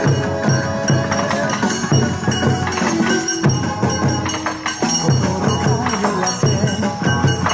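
Bon odori dance music playing with a steady beat and a melody line.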